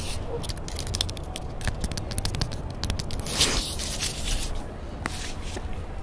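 Fingers scratching and picking at rough pine bark right against a handheld recorder's microphone: a dense run of small crackling clicks, with a longer scrape a little past the middle.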